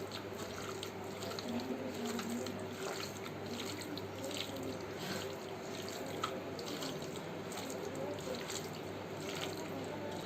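Hands mixing wet marinated chicken pieces with gram flour and rice flour in a bowl: steady wet squelching with many small sticky squishes and clicks.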